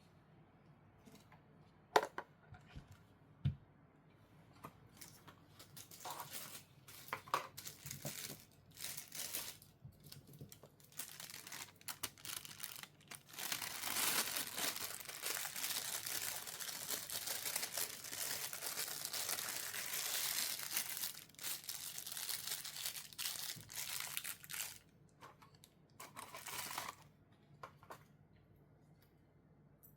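Packaging being opened by hand: scattered clicks and rustles, then about twelve seconds of steady crinkling and tearing of wrapping, with one more short rustle near the end.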